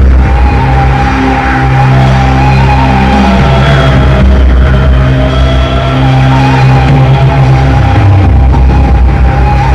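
Slow background music: long held notes over a deep, sustained low drone, the chord shifting a couple of times.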